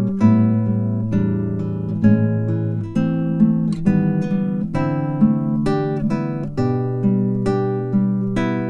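Background music on acoustic guitar: plucked and strummed chords with a new note or chord every half second or so.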